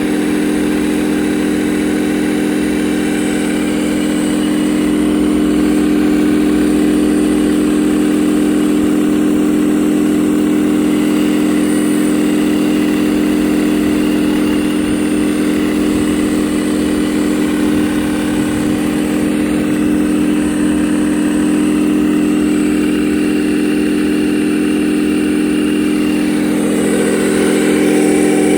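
Hydraulic radio-controlled construction model running with a steady, engine-like mechanical drone. The sound grows a little louder and fuller near the end.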